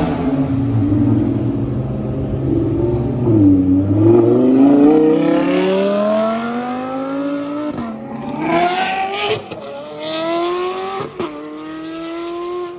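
Supercar engine at full throttle, accelerating hard: its pitch climbs steadily for several seconds, then drops and climbs again at three quick upshifts in the second half.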